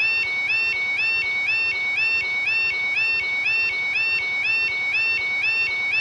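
Electronic two-tone warbling signal, holding a lower beep and sliding up to a higher one about twice a second over a faint hiss; it cuts off suddenly at the end.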